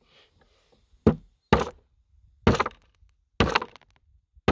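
A mallet striking the rod of a Lee Classic Loader four times, about a second apart, each a sharp knock with a short metallic ring, pressing a new primer into a .45-70 case; another strike comes at the very end.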